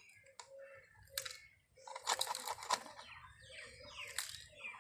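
Plastic toy excavator clicking and rattling as its arm and bucket are worked by hand over a toy tractor's plastic bin, with a sharp click about a second in and a dense burst of rattling clicks around two seconds in.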